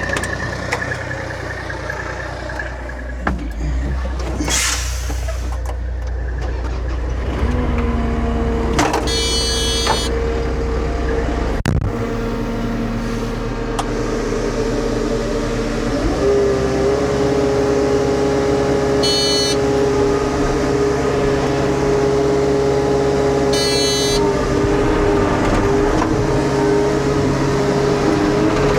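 Diesel engines of a compact excavator and a dump truck running during loading. Engine speed steps up about a quarter of the way in and again about halfway, then holds steady. A short hiss comes early on, and three brief bursts of noise come later.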